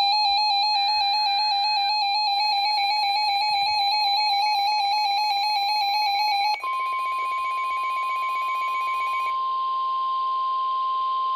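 Emergency Alert System alert tones: a buzzy, rapidly pulsing alarm tone with two short raspy bursts over it in the first two seconds, then about seven seconds in it switches to a single steady whistle-like attention tone, the warning signal that comes before the National Weather Service voice message.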